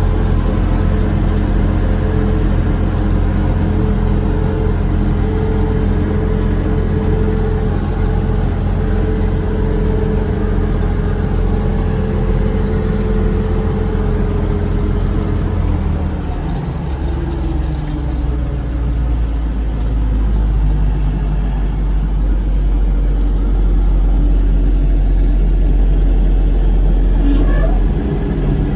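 John Deere 3300 combine's engine running steadily while harvesting corn; about sixteen seconds in, its pitch and tone shift to a different steady note.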